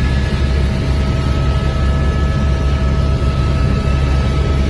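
Helicopter cabin noise in flight: a loud, steady rumble of rotor and engine, with faint steady whining tones above it.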